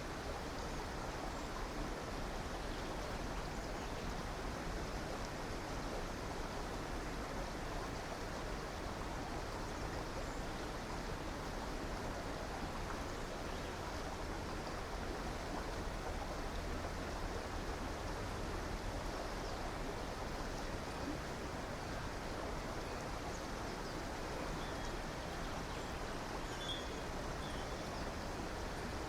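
River water rushing and flowing steadily, with a few faint bird chirps near the end.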